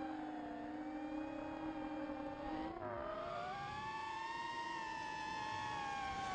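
Electric motors and propellers of a racing quadcopter whining in several pitches at once, the pitches sliding down and back up as the throttle changes, with a dip about three seconds in.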